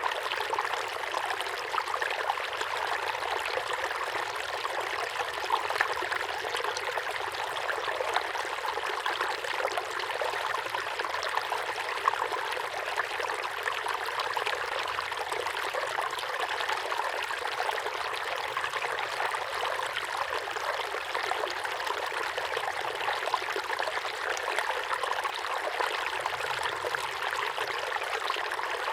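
Small waterfall pouring steadily into a pond: an even, unbroken splashing rush of water, light in the bass.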